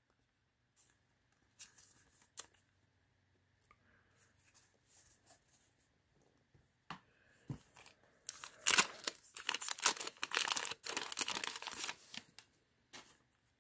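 Wax-paper wrapper of a 1990 Fleer basketball card pack being torn open: a few faint rustles and clicks, then about four seconds of loud crackly tearing and crinkling in the second half.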